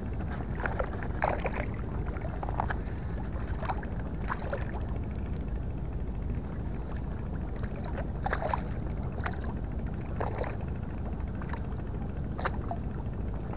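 Small waves lapping and slapping irregularly against a concrete breakwater, over a steady low wind rumble on the microphone.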